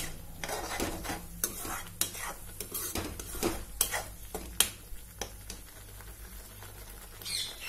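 Slotted metal spoon stirring and scraping a thick onion-tomato masala paste frying in ghee in a metal kadhai, with a faint sizzle underneath: the masala being roasted (bhuna). The scrapes come irregularly, about one a second, and thin out about five seconds in.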